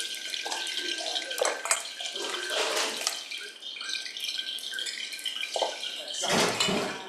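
A kitchen tap running water into a bowl, with short clinks of a spoon against a stainless-steel mixing bowl.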